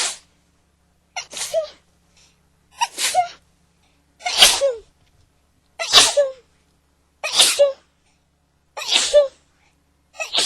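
A person sneezing over and over in a fit: about seven sneezes, one every second and a half or so, each a sharp burst ending in a short voiced tail.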